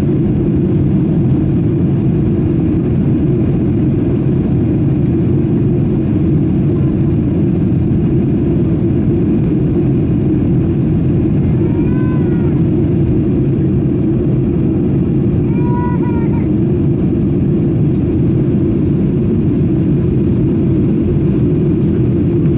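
Steady low rumble inside a jet airliner's cabin in flight, from the engines and the air rushing past. About halfway through come two short high-pitched squeals, about four seconds apart.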